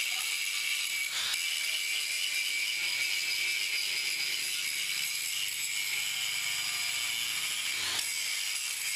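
Handheld power grinder running steadily against a boat propeller blade: a continuous high whine with hiss.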